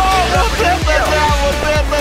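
Background music with a steady beat of deep drum strokes about two a second under a gliding melody.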